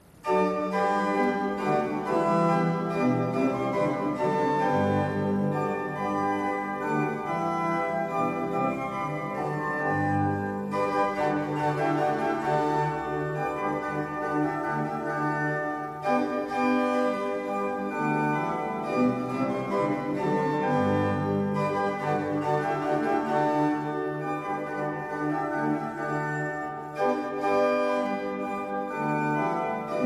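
Pipe organ playing loud, sustained full chords over deep pedal bass notes, starting suddenly just after the beginning.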